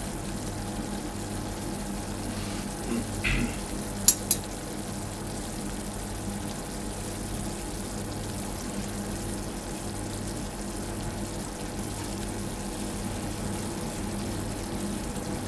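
Sugar syrup boiling fast in a small stainless-steel saucepan, crackling steadily with quick bubbles: the stage near 107 °C, short of the 121 °C wanted for Italian meringue. A knock and two sharp clicks come about three to four seconds in, over a faint steady low hum.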